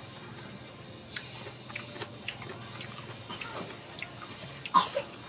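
Eating sounds of mango slices: small wet chewing and lip-smacking clicks with light taps of a metal fork, and about five seconds in one louder scrape of the fork against the plate.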